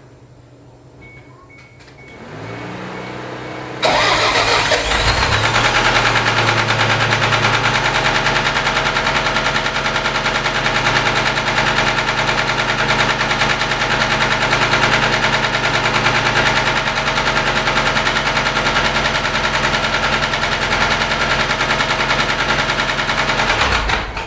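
Toyota 3S-GTE turbocharged four-cylinder engine cranked by the starter for about two seconds, then catching and running with a steady knock that the owner is pretty sure is rod knock. It shuts off suddenly near the end.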